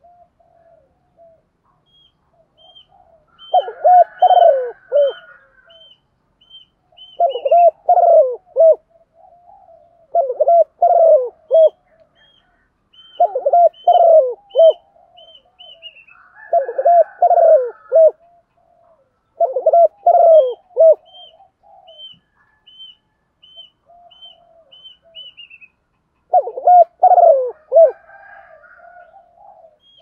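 Female spotted dove cooing: seven loud phrases of several throaty notes, about every three seconds, with softer coos between them. This is the hen's call, used to stir males into cooing. A faint run of high, evenly spaced chirps comes three times.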